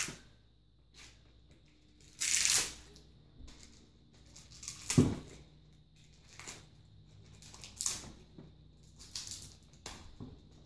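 Plastic packaging on scooter handlebars crinkling and tearing in short, scattered bursts as it is pulled off by hand, with a sharper knock about five seconds in.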